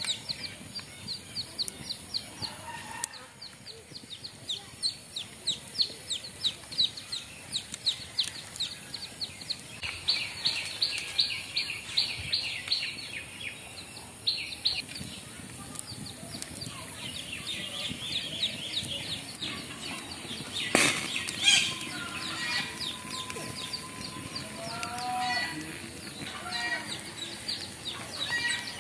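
Birds chirping in long runs of short, rapidly repeated high notes, with a few lower gliding calls near the end. A single sharp knock comes about two-thirds of the way through.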